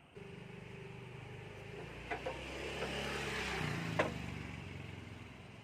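A motor vehicle passing by, its noise swelling to a peak a few seconds in and then fading, with a few sharp clicks along the way.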